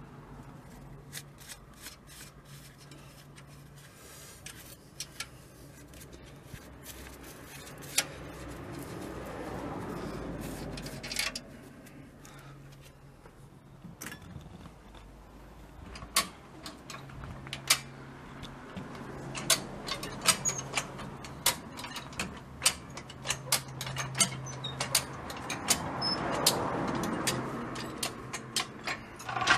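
A red high-lift farm jack being pumped, its handle and climbing pins clicking and clacking on the steel bar in a long run of sharp metal clicks that comes thick and fast from about halfway through.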